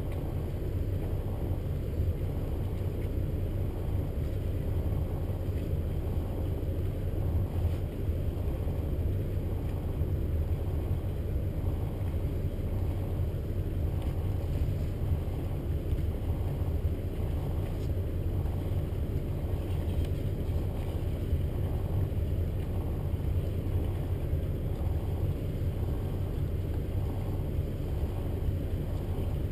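Motor yacht's engines idling in a steady low rumble with a faint regular pulse.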